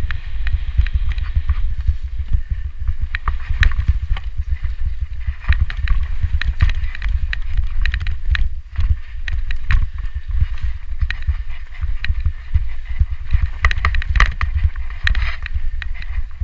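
Mountain bike descending a rough dirt trail, heard from a camera riding on the bike: a heavy, continuous rumble of the tyres over the ground and air buffeting the microphone, broken by frequent sharp rattles and clicks from the bike as it bounces.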